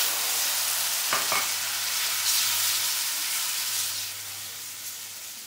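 Water hitting hot ghee-roasted gram flour in a frying pan, sizzling and spattering hard as it boils up, the sizzle dying down over the last second or two.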